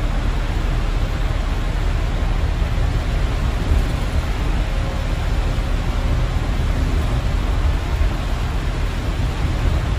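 Steady low rumble and hiss inside a moving bus: engine and tyres running on a wet road, with rain on the windscreen.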